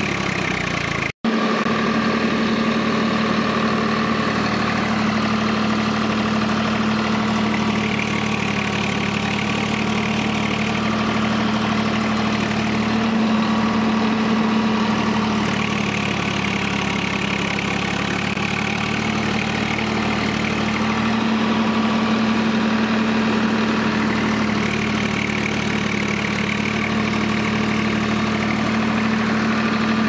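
Steady engine-like drone with a low, even hum, cutting out for an instant about a second in.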